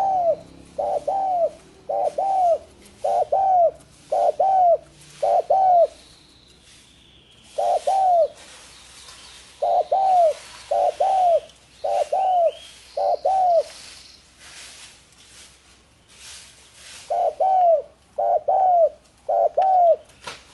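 Spotted dove (tekukur) cooing: short mellow coos about one a second, in runs of three to six broken by pauses of a few seconds.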